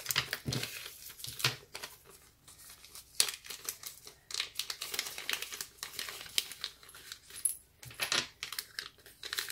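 Plastic jewelry packaging crinkling and rustling in irregular bursts as hands open a clear plastic sleeve and a zip-lock bag, with a few sharp ticks.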